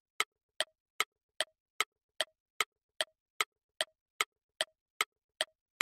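Quiz countdown-timer sound effect: a clock-like tick repeating evenly about two and a half times a second while time runs for the viewer to answer.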